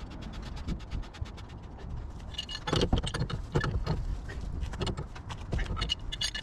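Hand tools working on a rotary screw compressor: a fast, even run of ratchet-like clicks, then irregular sharp metal-on-metal clinks and knocks from about two seconds in.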